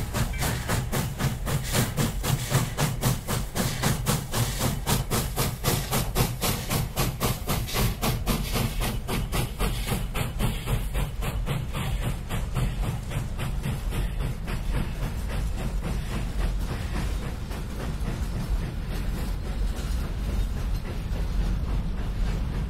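Nevada Northern 81, a Baldwin 2-8-0 steam locomotive, working hard with a train, its exhaust chuffing about four times a second. The chuffs fade after about ten seconds as the engine enters a tunnel, leaving the steady rumble of ore cars rolling past on the rails.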